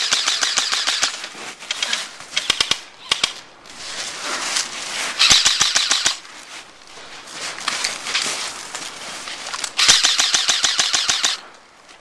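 Airsoft guns firing on full auto: several bursts of rapid clicking shots a second or two long, with a few single shots in between.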